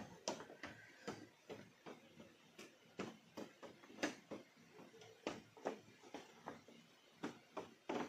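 Footsteps of someone walking on a forest trail, a steady run of soft knocks at about two to three steps a second.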